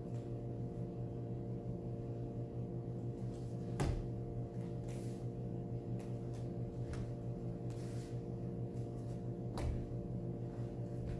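Steady room hum with several steady tones, with a few sharp thumps from a barefoot martial artist moving through a form on a mat, the loudest about four seconds in.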